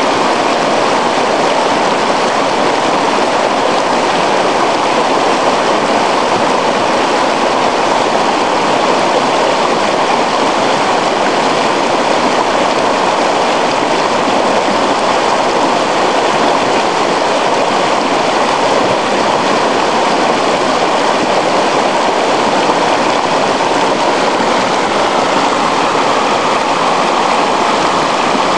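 Shallow river running over rocks, a steady rush of water.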